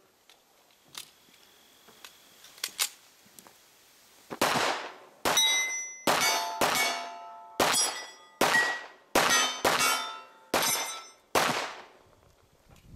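A handgun fired at steel plate targets, about ten shots starting about four seconds in. Each sharp report is followed by the ringing clang of a hit steel plate.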